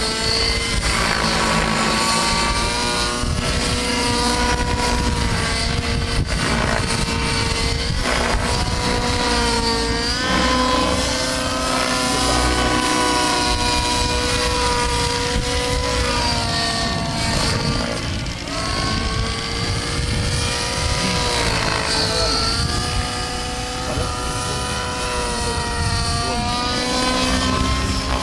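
A 90-class T-Rex radio-controlled helicopter in flight, its rotor and engine giving a steady whine. The pitch rises and falls again and again as it manoeuvres and passes overhead.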